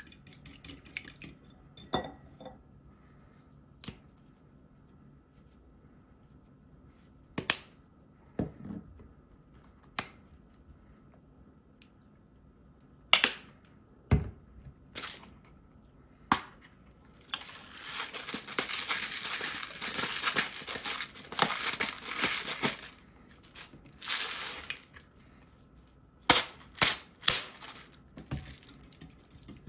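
Kitchen handling noises from food preparation: scattered sharp knocks and clicks, and past the middle several seconds of dense, scratchy noise that comes in a few uneven runs.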